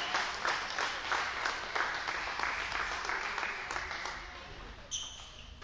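Applause from a small group of spectators after a table tennis point, a quick patter of hand claps that thins out and dies away over about four seconds.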